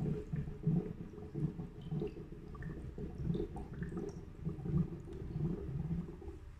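Electrolyte gurgling as it drains from the plastic reservoir down the tubes into the HHO dry cell, filling it. Irregular low gurgles come about twice a second.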